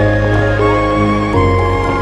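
Slow background music of held notes and chords, changing to a new chord a little past halfway.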